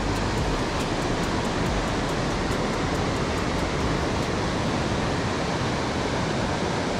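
Steady rushing of river water at a weir, an even noise with no breaks.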